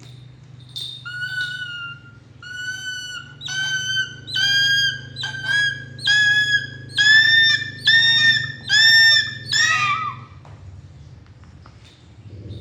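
A captive eagle calling: about ten high, piercing screams in a row, each about half a second long, growing louder, the last one sliding down in pitch.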